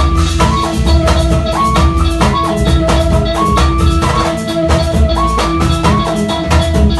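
Full pagode baiano band playing: a drum kit, bass guitar, electric guitar and a section of surdo and repique drums keep a busy, even beat under a short melodic riff that repeats every second or so.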